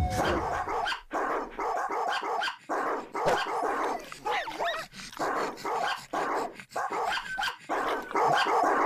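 A dog barking over and over, about two barks a second, with some higher, wavering yelps in the middle.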